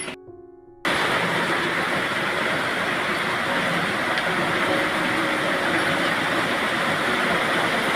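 Heavy rain falling steadily as a dense, even hiss that starts abruptly about a second in, after a brief quiet moment where background music fades out.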